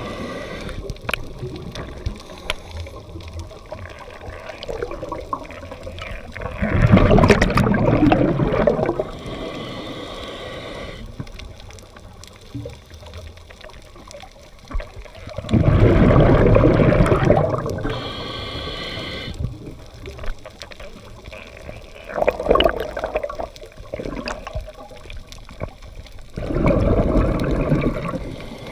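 Scuba diver breathing underwater through a regulator: about four loud gurgling rushes of exhaled bubbles, each lasting a second or two, with thinner hissing inhalations through the regulator between them.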